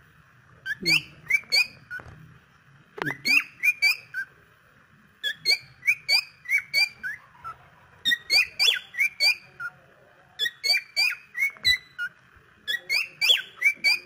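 Cockatiel whistling in about six quick bursts, each a string of short, sharp chirping notes that sweep up and down in pitch, with brief pauses between bursts.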